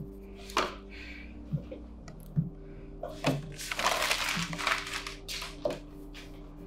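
Paper being crumpled by hand, a crinkling rustle lasting about a second and a half midway, with a few sharp knocks around it.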